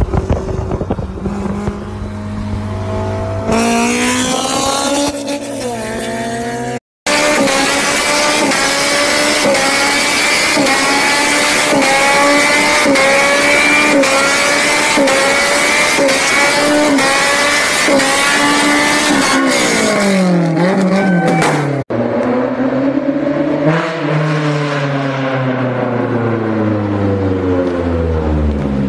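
Honda S2000 engine revving hard during drifts, in cut-together clips. The revs climb at first, then hold high with the pitch wavering up and down about once a second over the hiss of squealing tyres, and in the last part swing up and down as the car slides.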